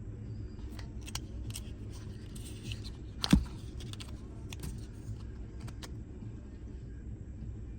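Small metallic clicks and taps from handling a Benchmade Mini Barrage folding pocket knife, with one sharper, louder click about three seconds in, over a low steady hum.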